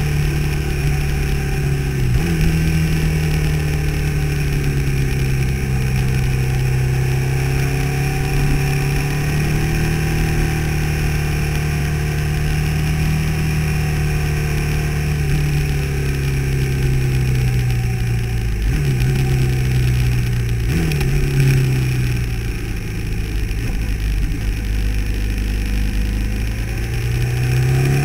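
Motorcycle engine running at road speed on a winding road, its note slowly rising and falling with the throttle through the bends, with a few sudden jumps in pitch about two seconds in and around twenty seconds in, over a steady rush of wind.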